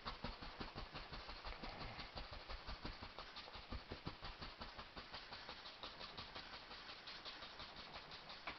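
Paintbrush scrubbing acrylic paint onto a stretched canvas: quick, irregular scratchy strokes, several a second.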